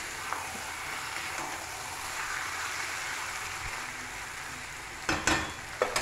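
Chicken and green chillies sizzling steadily in oil in a kadai, with a couple of sharp knocks near the end.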